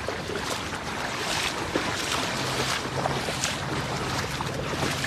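Shallow river water splashing and sloshing as a fishing net is dragged through it by a wading person, with a few louder splashes along the way.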